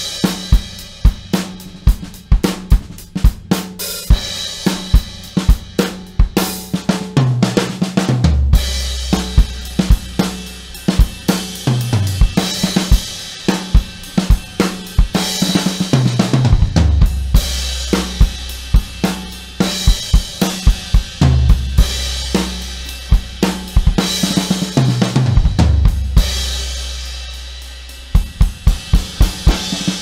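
Vintage Yamaha 9000 birch drum kit played: a beat on bass drum, snare and cymbals, broken every four seconds or so by tom fills that step down in pitch from the rack toms to the floor tom, each ending in a low boom with cymbal wash.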